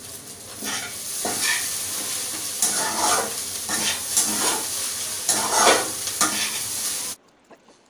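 Chow mein noodles sizzling in a hot wok on a gas burner while a metal spatula stirs and scrapes through them, a stroke about every half second to second. The sound cuts off suddenly about seven seconds in.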